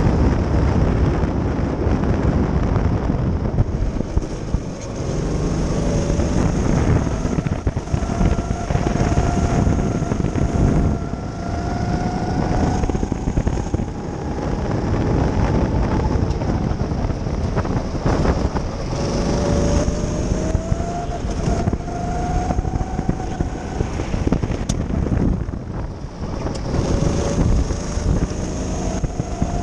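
Go-kart's small petrol engine running flat out from the driver's seat, its pitch climbing in long sweeps as it accelerates down the straights and dropping back into the corners. Heavy wind buffeting on the microphone runs under it.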